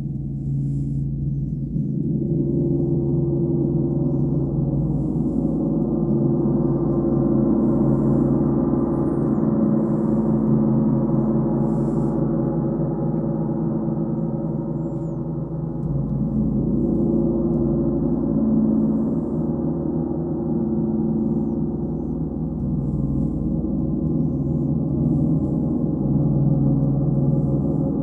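Large bronze gong beaten repeatedly with soft round-headed mallets, its deep sustained ringing building into a continuous wash about two seconds in. The wash eases a little twice and swells again.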